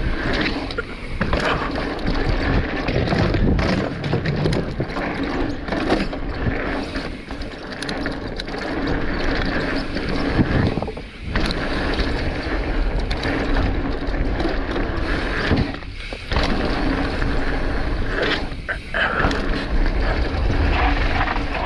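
Mountain bike being ridden down a rough trail: tyres rolling over dirt and rocks, with the bike's chain and suspension rattling and knocking over bumps, and wind rushing over the microphone.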